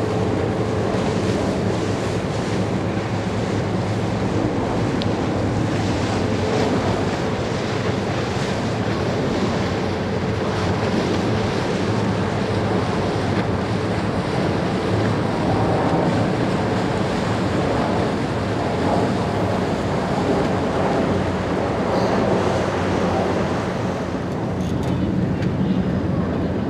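Red Funnel car ferry Red Falcon's engines running with a steady low rumble and its propeller wash churning the water as it passes, with wind buffeting the microphone.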